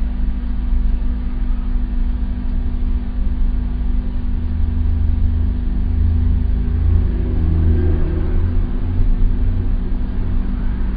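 Steady low rumble of a stopped patrol car idling, with a constant low hum, as picked up by its dash-camera microphone. The rumble grows a little stronger around the middle.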